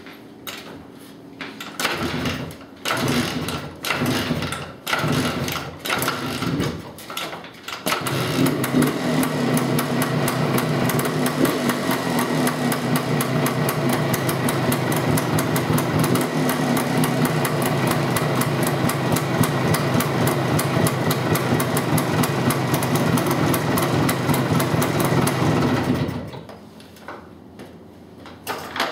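Kawasaki KE250 two-stroke single-cylinder dirt bike engine being started: several short bursts as it fires and dies on repeated kicks, then it catches about eight seconds in and runs steadily with a fast rattling beat before stopping near the end.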